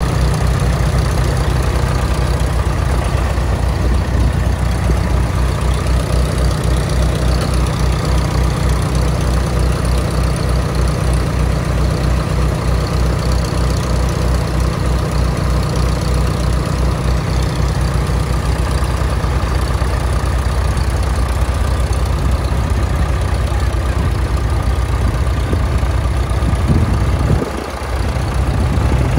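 1984 Case IH 485 tractor's diesel engine idling steadily with an even low pulse. The sound dips briefly and changes about a second and a half before the end.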